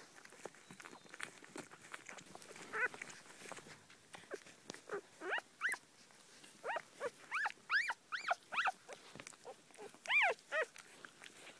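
Newborn puppies whining while they nurse: a string of short high-pitched cries, each rising then falling, bunched most thickly in the middle, with the loudest cry near the end. Faint soft clicking from the suckling runs beneath.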